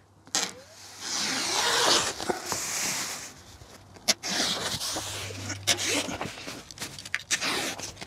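A Stanley knife slicing through Rhino Vent Ultra breathable membrane in long drawn-out strokes, the sheet rustling as it is cut, with a sharp click about four seconds in.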